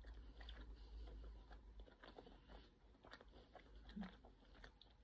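Faint close-up chewing of a bite of soft friand cake, with many small wet mouth clicks. A short low hum about four seconds in.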